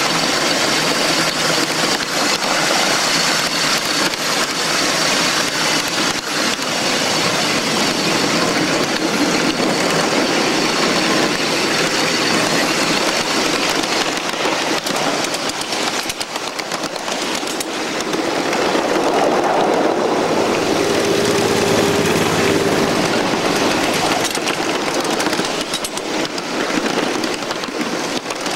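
Live-steam ridable-scale Shay locomotive running along the track: a steady mix of wheels on rail and running gear, with many small clicks. A low steady tone joins for a few seconds about two-thirds of the way in.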